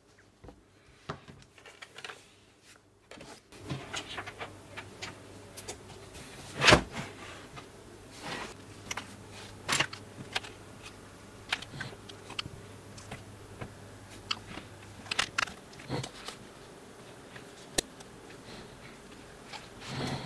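A laptop being handled on a table: scattered clicks, taps and knocks as its lid is opened and it is set up, with one sharp knock about six and a half seconds in.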